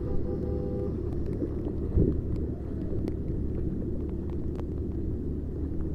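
Steady low rumble of wind and floodwater noise on a phone microphone, with a single thump about two seconds in and a few faint clicks.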